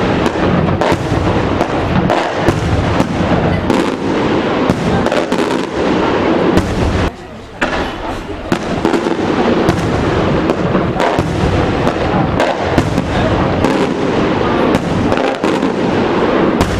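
Aerial fireworks shells bursting overhead: a loud, rapid, nearly continuous barrage of bangs and crackling, with a short lull about seven seconds in.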